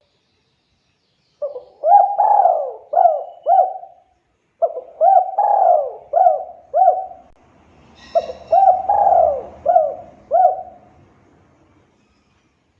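Spotted dove (tekukur) cooing in song: three phrases of about five coos each, a second or so apart.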